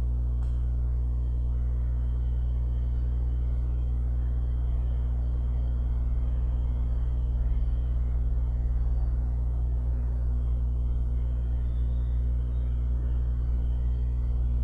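Steady low droning hum with no rhythm or change.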